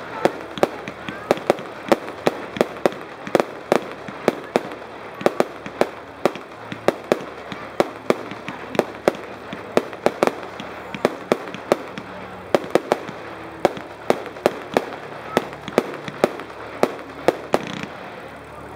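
Multi-shot fireworks cake (barrage) firing a long, even run of shots, each a sharp pop or bang, about two to three a second, with a brief lull near the end.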